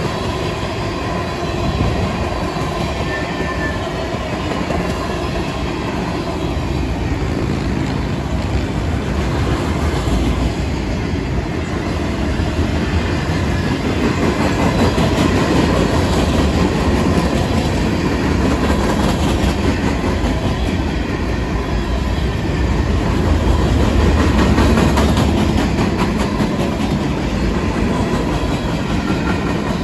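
Freight train cars rolling past at trackside: a loud, steady rumble of steel wheels on the rails, with the clatter of wheels over the track.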